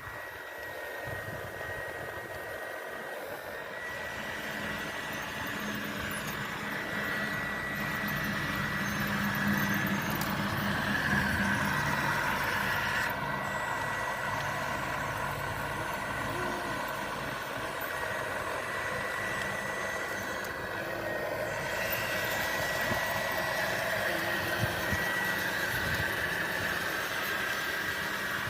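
Small electric motors and gearboxes of radio-controlled construction vehicles running, a steady whirring with a high whine that drops out briefly twice.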